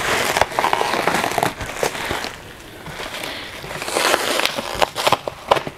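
Bubble wrap and plastic packaging crinkling and crackling as it is pulled away by hand, with a run of sharp crackles near the end.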